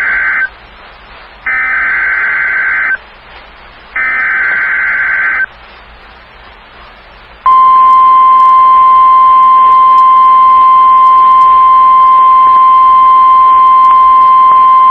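NOAA Weather Radio Emergency Alert System (SAME) header: three bursts of digital data tones about a second and a half each with a second of quiet between, the first ending just as the sound begins. After about two seconds of quiet, the weather-radio warning alarm, one steady high tone, starts about halfway through and holds. The header and alarm signal an incoming alert, here a Severe Thunderstorm Watch.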